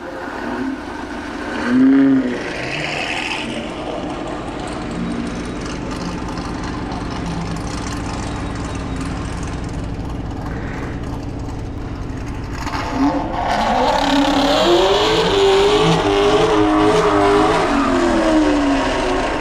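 Supercharged V8 of a ZL1 Camaro on a drag strip, running steadily at first. About 13 seconds in it accelerates hard and louder, its pitch climbing and dropping through several gear changes.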